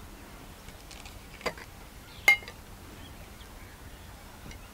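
Two sharp clinks of small earthenware spice pots knocking while spices are added to chicken in a clay pot. The second clink, about two seconds in, is louder and rings briefly. A faint steady outdoor background sits under them.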